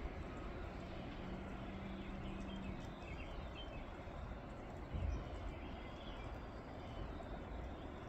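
Snowstorm ambience: a steady hiss of wind and falling snow over a low rumble. A faint steady hum runs through the first couple of seconds, faint high chirps come in the middle, and a single dull thump lands about five seconds in.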